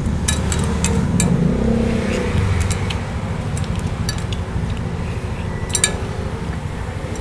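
Eating at a laid table: chewing with sharp clicks and clinks of dishes and cutlery scattered through, the busiest cluster about six seconds in, over a low rumble.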